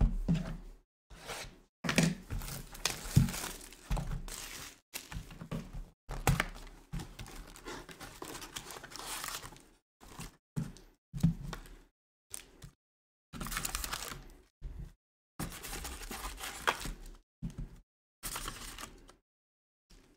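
Foil trading-card pack wrappers crinkling and tearing as packs are handled and ripped open, with light thunks of packs and cards being set down; the sound comes in irregular bursts with brief silent gaps.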